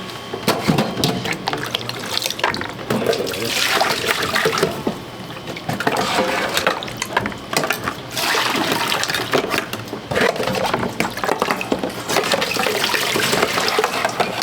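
Water running or being poured in several spells of a few seconds each, with small clicks and clinks throughout.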